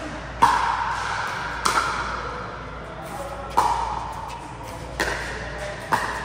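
Pickleball paddles striking the hard plastic ball during a rally: five sharp pops, one every one to two seconds, each ringing on in the hall's echo.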